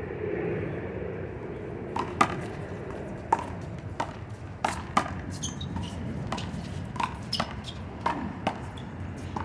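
One-wall handball rally: a small rubber handball smacking sharply off players' hands, the wall and the pavement, about a dozen hits from two seconds in, roughly two a second.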